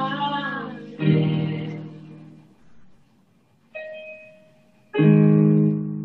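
Piano chords heard over a video call: one rings out about a second in, a softer one near the middle and a loud one near the end, each left to fade.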